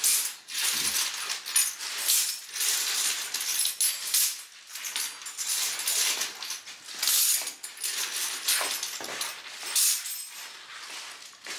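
Loose metal champagne capsules clinking and rattling against one another as they are sorted by hand, a continuous run of small metallic clicks.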